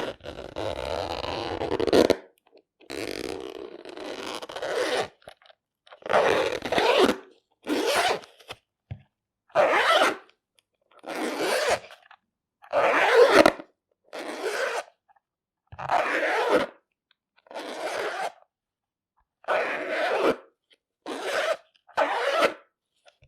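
The zipper of a glasses case being pulled: two slow, drawn-out zips, then about a dozen quick zips with short pauses between them.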